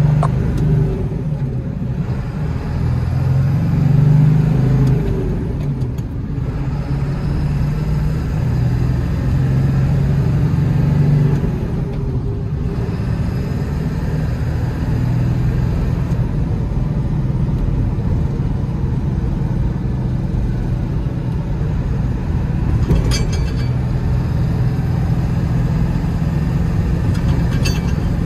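Engine and road noise heard from inside the cab of a 2000 Ford F450 XLT truck on the move. The engine note rises and drops back a few times in the first half, then holds a steady cruise. Two short clicks come near the end.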